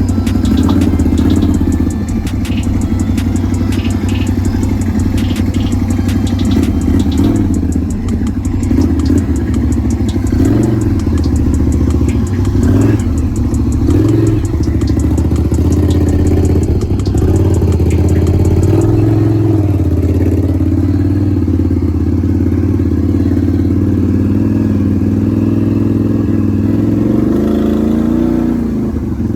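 Can-Am Renegade 1000 XMR ATV's V-twin engine running under way, its pitch rising and falling with the throttle. Sharp clattering clicks sound over it during the first several seconds.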